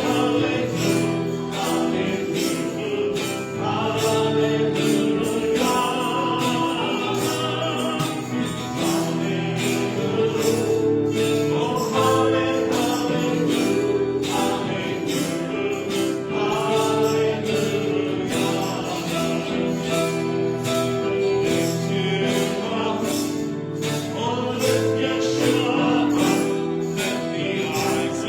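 Gospel worship song: a choir sings long, held notes over a steady beat.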